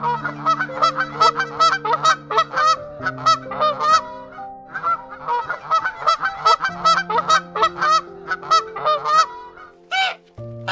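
A flock of brown Chinese geese honking in quick, overlapping calls, with a short lull in the middle and two last honks near the end.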